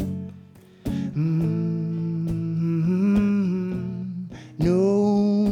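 Male voice humming long held wordless notes over strummed guitar, the pitch stepping up slightly about three seconds in.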